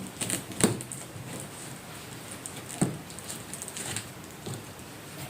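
Hands handling the cardboard box and packaging of a large party speaker during unboxing: scattered light clicks and rustles, with two sharper knocks, one under a second in and one near the three-second mark.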